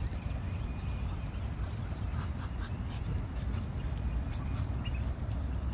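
Muscovy ducklings peeping in short, scattered high calls over a steady low rumble.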